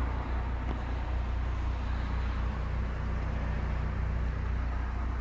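Renault Kangoo's 1.5 diesel engine idling steadily, heard from inside the cabin with the air conditioning blowing.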